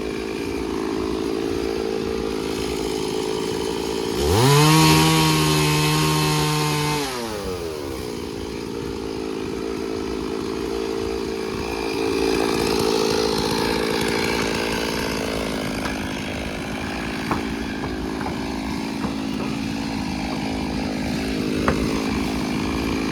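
Chainsaw engine running steadily, revved to full throttle about four seconds in, held there for about three seconds, then dropping back. A few sharp clicks come later.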